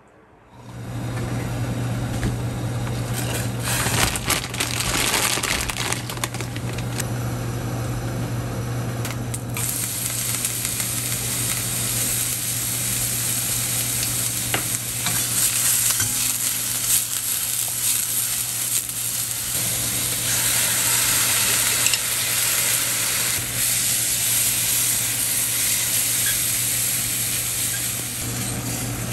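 Sliced onions sizzling in a stainless steel frying pan, with a spatula scraping and stirring through the pan, later through tomato sauce. It starts about half a second in, over a steady low hum.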